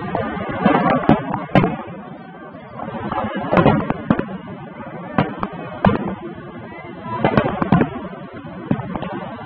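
Aerial fireworks bursting overhead: a string of sharp bangs at uneven intervals, about a dozen in all, some in quick clusters, over a continuous background rumble.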